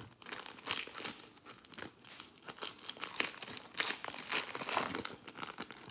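Plastic wrapper of a trading-card pack crinkling and tearing as it is pulled open by hand: a dense, irregular run of crackles.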